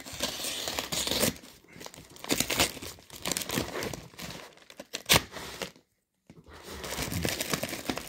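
A brown paper mailing envelope being torn and pulled open by hand, a stream of crinkling and tearing paper. There is one sharp crackle about five seconds in, then a brief silence before the rustling starts again.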